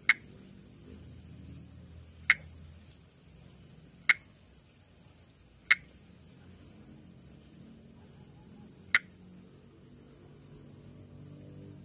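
Northeastern monkey frog (Pithecopus nordestinus) calling: five short, sharp clicking notes spaced one to three seconds apart, over a steady high-pitched insect trill.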